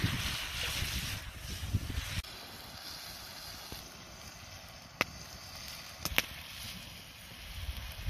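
Wind buffeting the microphone with a low rumble for the first two seconds, cutting off abruptly. After that comes a quieter outdoor hiss broken by a few sharp clicks.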